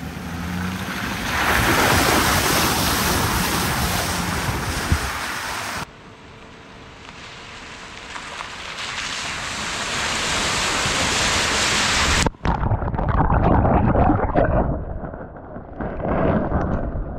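Chevrolet Silverado pickup driving on a muddy dirt road: engine and tyre noise, with wind buffeting the microphone. After an abrupt cut about six seconds in, the sound starts quieter and grows steadily louder as a truck drives up toward the microphone. It then cuts off suddenly to a muffled, uneven rumble.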